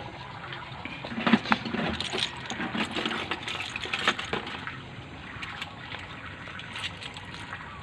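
Light clicks and rattles from a wire-framed bintol crab lift net being handled as fish bait is tied onto it, thickest in the first half, over a steady watery hiss.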